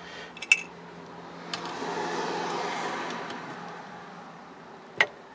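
A vehicle passing by, its noise swelling and fading over a few seconds. Small clicks of metal distributor parts being handled come early on, and a single sharp click comes near the end.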